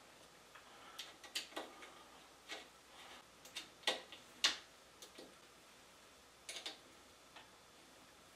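Irregular small metallic clicks and ticks of an Allen key working the bolts that hold a 3D printer's upright frame to its base, as the bolts are snugged up. The clicks are scattered and faint, loudest about four seconds in, with a few more near the end.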